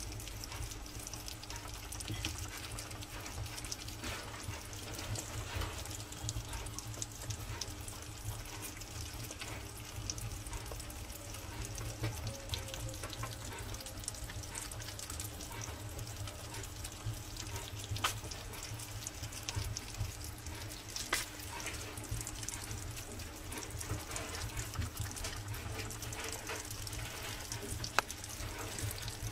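A group of hedgehogs eating wet food together from one plate: a steady crackle of many small wet clicks from their chewing and lapping.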